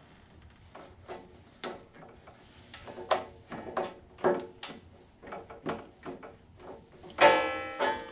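A screwdriver working the carburetor's small screws loose, a run of short metallic clicks and scrapes. About seven seconds in there is one louder, short squeak.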